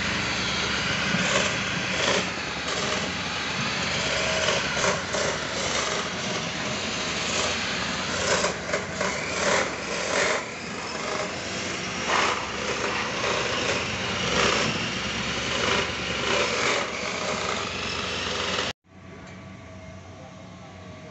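Abrasive cut-off saw cutting hollow steel sections: a loud, harsh grinding noise that flares up again and again as the disc bites into the steel. It cuts off suddenly near the end, leaving a much quieter steady hum.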